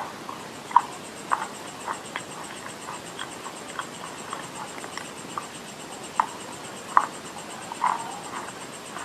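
Close-miked chewing of edible clay: irregular wet mouth clicks and smacks, one or two a second, a few of them louder than the rest.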